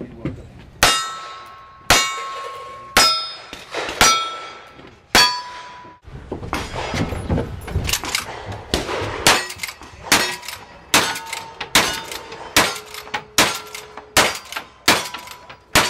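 Revolver shots about a second apart, five of them, each followed by the clang of a steel target ringing. Then, about halfway through, a faster string of lever-action rifle shots, with steel targets ringing after the hits.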